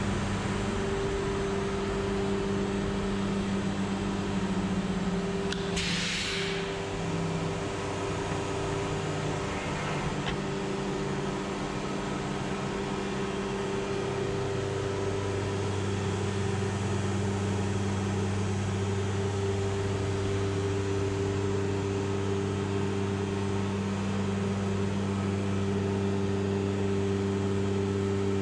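HOMAG CENTATEQ CNC machining centre running: a steady mechanical hum with several held tones, its lowest tone growing stronger about halfway through. A short hiss of air about six seconds in.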